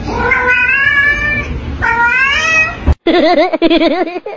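A grey cat meowing for a piece of shrimp: two long, wavering meows, each about a second. Near the end comes a quick run of short cat calls, several a second.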